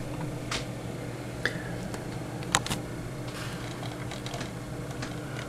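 A few sharp, isolated clicks at a computer, likely mouse or key clicks while an email is scrolled, over a steady low electrical hum.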